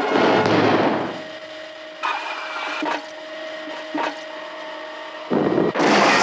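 Cartoon sound effects of a vacuum gun: a loud rushing whoosh in the first second, then a steady machine hum broken by three short knocks, and near the end a sudden loud blast as the machine explodes.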